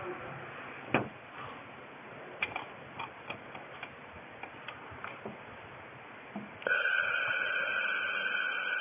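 A 2000 W laser welding machine: a run of light clicks and taps, then about two-thirds of the way in a steady, high-pitched buzz starts abruptly and keeps going as the machine runs.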